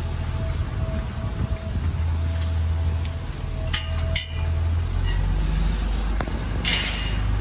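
First-generation Orion VII hybrid transit bus driving by and pulling away, a steady low drone with a faint steady whine above it. A few sharp clicks come about four seconds in, and a short hiss comes near the end.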